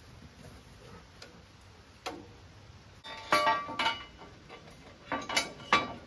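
Steel sawmill head-frame parts clanking and ringing as they are handled and fitted: one knock about two seconds in, then two clusters of sharp metal clanks, around the middle and near the end.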